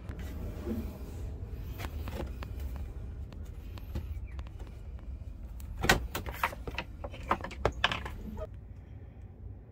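A series of irregular knocks and clatters from handling tools or materials, the sharpest about six seconds in and several more close together near eight seconds, over a low steady rumble.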